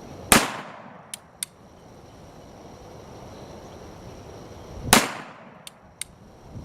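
Two shots from a Model 1879 Reichsrevolver firing 10.6 mm black powder cartridges, about four and a half seconds apart, each ringing out briefly. Each shot is followed within a second by two quick sharp clicks as the single-action hammer is cocked for the next shot.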